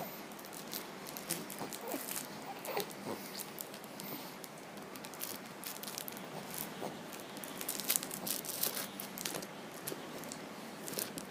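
A pet chewing and tearing at a toy: irregular crinkling, crunching and clicking bites.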